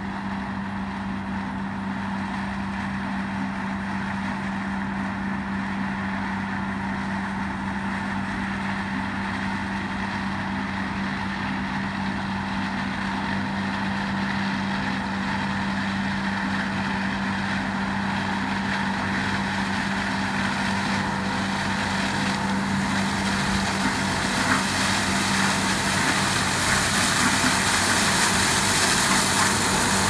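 Broussard 223 double-row whole-stalk sugarcane harvester running with a steady low hum, growing steadily louder as it approaches through standing cane, with a rushing noise building over the last ten seconds.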